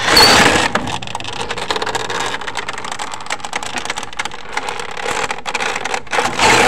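Plastic roller shutter slats clicking and rattling as the shutter is wound up onto its roller, a quick irregular run of small clicks.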